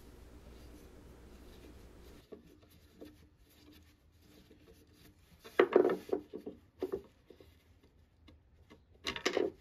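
A hand screwdriver turning a stubborn old wood screw out of a wooden school-desk seat fixed to a cast-iron frame. It is mostly faint, with a cluster of short, loud noises a little past halfway and another near the end.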